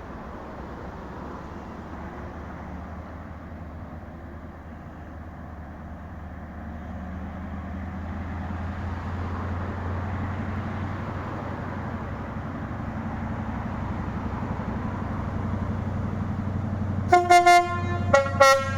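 A train approaching, its rumble and low engine drone growing steadily louder. Near the end its two-tone horn sounds in short, repeated blasts.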